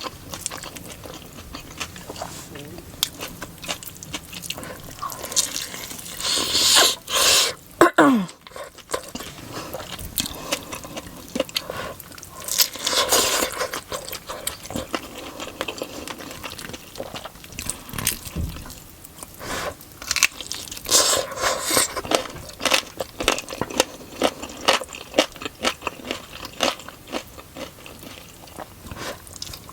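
Close-miked eating sounds of chicken biryani with raita: chewing, biting and crunching with wet mouth clicks, coming in uneven bursts. A brief pitched sound falling steeply in pitch comes about eight seconds in.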